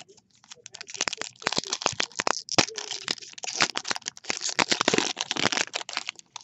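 Plastic or foil trading-card pack wrapper crinkling and crackling as it is torn open and handled, a dense run of sharp crackles starting about a second in.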